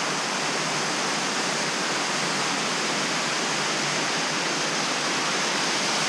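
Waterfall on a creek: the steady rush of water pouring over a rock drop.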